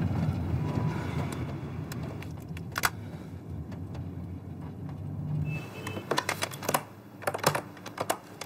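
A low steady hum that drops away about five and a half seconds in, followed by quick, irregular runs of clicks from keys being pressed, like typing.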